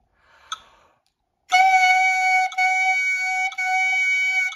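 Quick intake of breath, then a clarinet mouthpiece and reed sounding a steady, high, squawky note, tongued 'too' into separate notes about a second each, three in a row with a fourth just beginning near the end. Each note is started by the tip of the tongue touching the tip of the reed.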